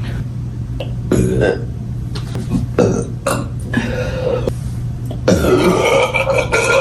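A woman burping loudly several times: short burps about one and three seconds in, then a long, drawn-out burp starting a little after five seconds.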